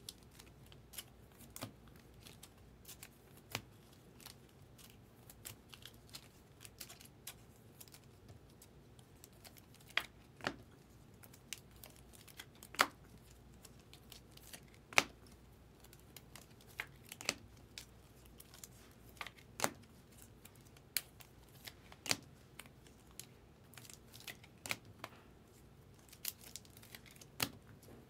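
Trading cards and clear rigid plastic card holders (top loaders) handled on a table: irregular sharp plastic clicks and taps as cards are slid in and set down, with light rustling between them.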